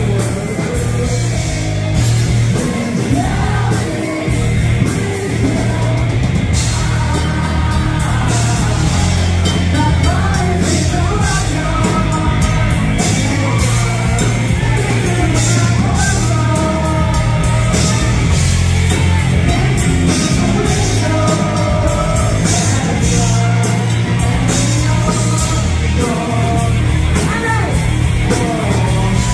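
A live rock band playing loud: electric guitars, bass guitar and drums, with a man and a woman singing over them into microphones.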